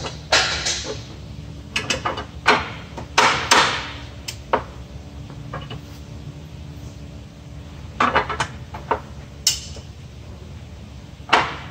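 Scattered metal clinks and knocks, a few ringing briefly, as the bearing support cage is worked into place over the CVT sheaves of a Yamaha Wolverine RMAX 1000, over a steady low hum.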